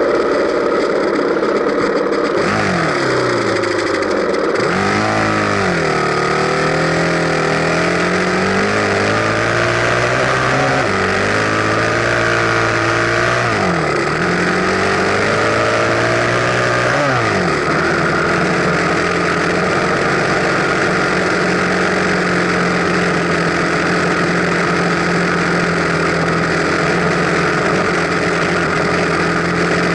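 Enduro dirt bike engine running under way, its pitch rising and falling repeatedly with the throttle through the first half, then holding one steady note from a little past halfway.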